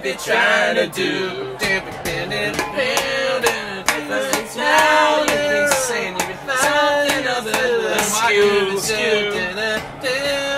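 Men's voices singing a melody together without instruments, holding and sliding between sung notes.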